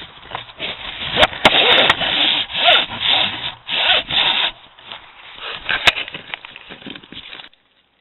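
Rubbing and scraping directly against a trail camera's casing as something jostles it: a run of rough, noisy strokes, roughly two a second at their loudest, with a few sharp knocks. It stops suddenly near the end.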